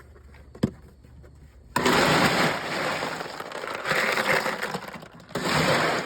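Ice being dumped and scooped onto fish in a cooler: a sharp click, then about two seconds in a loud crunching, rattling clatter of ice that runs for several seconds, breaks off briefly and starts again near the end.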